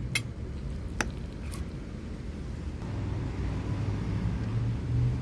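Three short clinks of cutlery on a plate in the first second and a half, over a steady low rumble.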